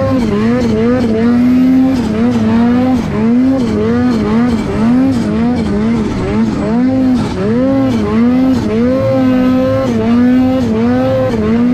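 Ski-Doo turbo snowmobile engine running hard through deep powder, its revs rising and falling over and over as the throttle is worked. Its pitch holds steadier near the end.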